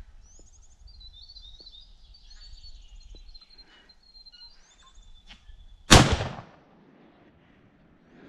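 A single loud rifle shot about six seconds in, its report trailing off quickly in an echo. Small birds chirp and sing before it.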